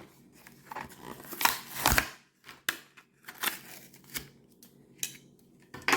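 A Hot Wheels blister pack being opened by hand: plastic crinkling and the cardboard card tearing, in irregular clicks and rustles, loudest about one and a half to two seconds in.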